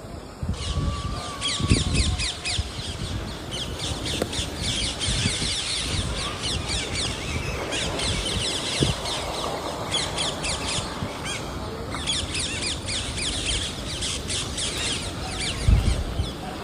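Birds chirping busily in long spells of rapid, high notes, with a few low thumps.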